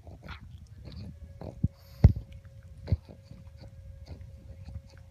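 A pug gnawing and chewing a hard chew treat: irregular crunching bites and teeth clicks, the loudest about two seconds in.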